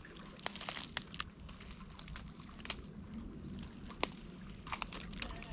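Footsteps pushing through dense undergrowth: scattered sharp cracks and rustles of twigs and plant stems, a handful of them a second or so apart.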